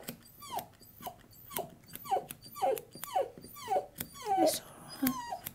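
Tibetan Terrier puppy whimpering in short, falling whines, about two a second, while scissors snip around its feet.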